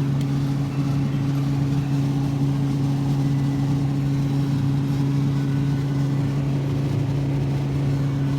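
Steady low machine hum, an even drone with two deep tones, holding level and unbroken throughout.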